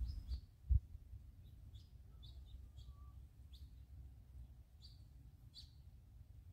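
Small birds chirping: short, high calls every second or so over a low rumble. A single thump about a second in.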